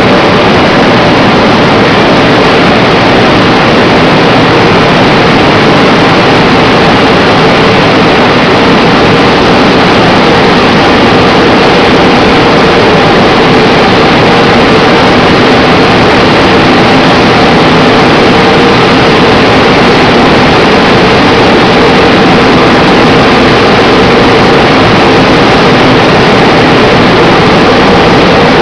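Tunnel car wash running: spinning foam brushes and water spray beating on the equipment and a passing car, with the wash's motors under it. A loud, steady noise with a faint hum in the middle.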